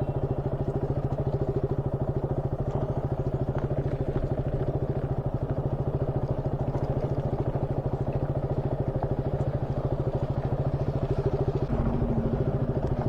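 Motorcycle engine running steadily at low speed with an even beat, and light clatter from riding over a rough, unpaved stretch.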